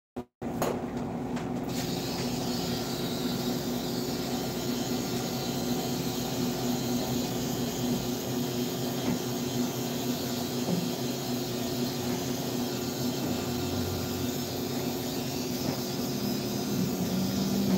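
A steady hum with a hiss behind it, unchanging throughout, after a brief cut-out right at the start.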